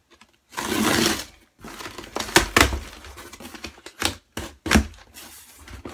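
Packing tape on a cardboard box being slit and torn open with scissors: a long rasping tear, then a run of sharp cracks and rustling as the cardboard flaps are pulled open.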